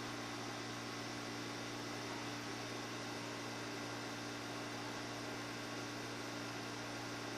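Steady electrical hum with a constant hiss underneath, a low drone and a higher buzzing tone that never change.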